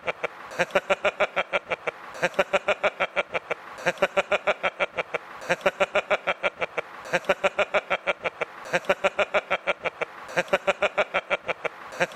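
A man laughing hard and without letup: rapid, even 'ha-ha-ha' pulses, about eight a second, in runs of a second and a half broken by short pauses.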